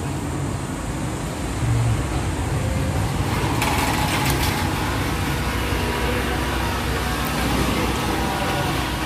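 Steady background rumble of traffic and ventilation, with a few clicks and rattles about four seconds in as an aluminium-framed glass shop door is opened.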